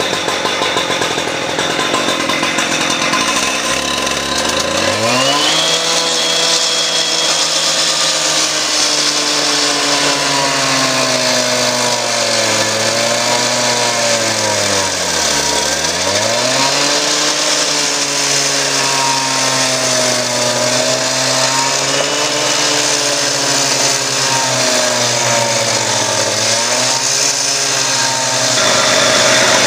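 Two-stroke gas cut-off saw with a masonry blade cutting into a brick wall. The engine revs up about four to five seconds in, then holds high. Its pitch sags and recovers several times as the blade loads in the cut, dipping deepest about halfway through, over a steady grinding hiss.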